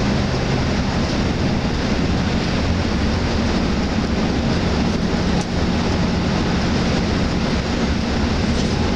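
Cabin noise inside a Hyundai Universe Xpress Noble coach at highway speed: a steady drone of diesel engine and road noise with a low engine hum.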